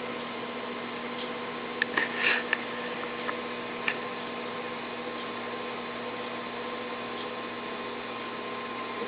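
Steady electrical hum over a low hiss. About two seconds in comes a short cluster of small clicks, then two more single clicks a second or so apart.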